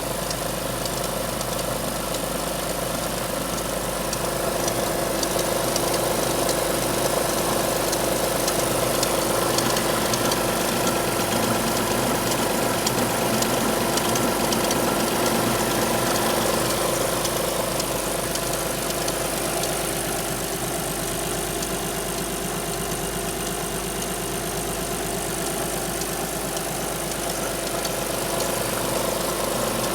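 Alfa Romeo 156 V6 engine idling steadily after a cold start, with faint rapid ticking over the running note. A cold start like this brings out two distinct abnormal noises that are not noticeable when the engine is warm.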